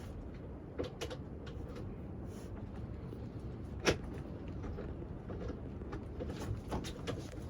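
Wooden bed boards being handled and fitted: scattered light knocks and creaks, with one sharp knock about four seconds in, over a steady low background rumble.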